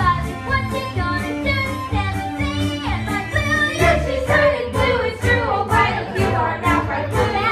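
A child singing a musical-theatre song over a musical accompaniment with a steady beat.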